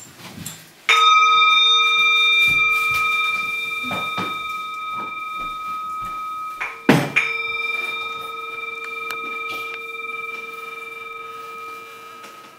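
A bell struck twice, about six seconds apart, each stroke ringing on with a long, slow fade.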